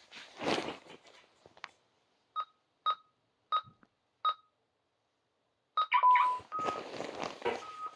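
Security alarm keypad beeping as its buttons are pressed: four short single-pitch beeps about two-thirds of a second apart, then a quick run of beeps and a longer tone about six seconds in. A rustling, handling noise comes near the start and again toward the end.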